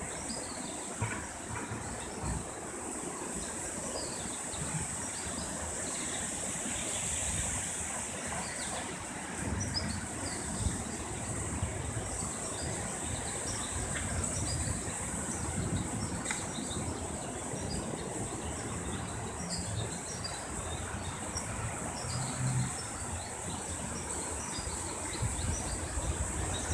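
Outdoor ambience under an approaching thunderstorm: a steady high insect drone with scattered short chirps, over an uneven low rumble.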